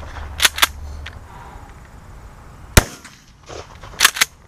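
A 12-gauge pump-action shotgun fires a single shot a little under three seconds in. About half a second in, and again about four seconds in, its pump is worked, giving two sharp clacks close together each time.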